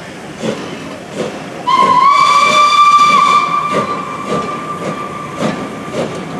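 Steam locomotive whistle giving one long blast about two seconds in, loudest for a second and a half, then held more faintly until near the end, as the train pulls away. The regular clatter of the moving train runs underneath.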